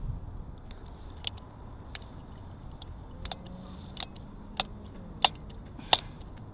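A series of sharp metallic ticks from a spun e-bike wheel with a mechanical disc brake. The ticks come about once a second, with the gaps slowly widening as the wheel slows, and they grow louder toward the end.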